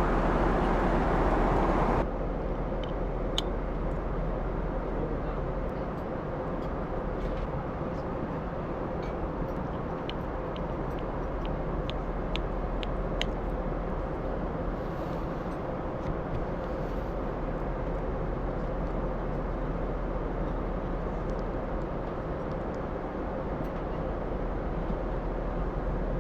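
Steady in-flight cabin noise of a jet airliner: an even rushing hum with a faint steady tone in it. It drops a little in level about two seconds in. Scattered small light clicks sound through it, with a quick run of them about ten seconds in.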